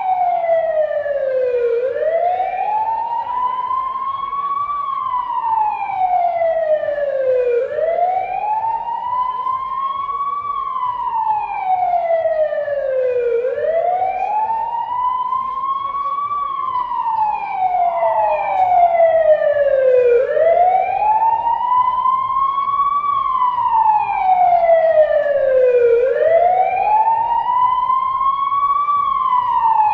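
Wailing siren rising and falling slowly in pitch, one full cycle about every six seconds, with a steady low pulse underneath.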